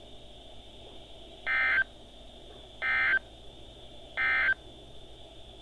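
Three short, identical bursts of EAS SAME digital data tones from a NOAA Weather Radio broadcast, about a second and a half apart. Their shortness fits the end-of-message code that closes an alert. A faint steady high whine and hiss from the radio reception runs underneath.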